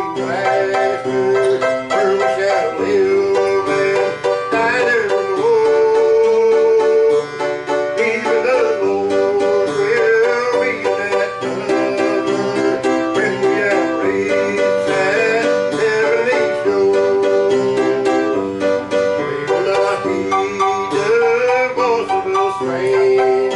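Music played on plucked strings in a bluegrass style, with notes picked quickly over sustained chords.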